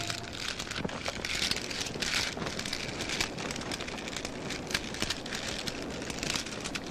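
Wood fire crackling in a clay brazier: irregular pops and snaps over a steady hiss.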